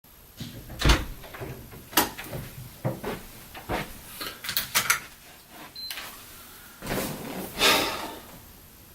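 A string of sharp knocks and clicks over the first six seconds, then two longer rustling scrapes near the end, like objects being handled in a small room.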